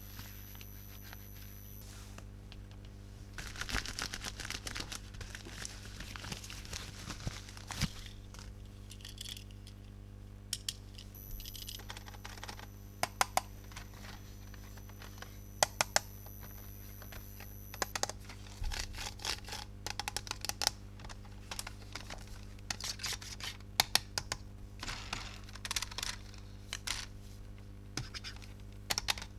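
Plastic toys and packaging being handled: bursts of crinkling and scratching with many sharp clicks, over a steady low electrical hum.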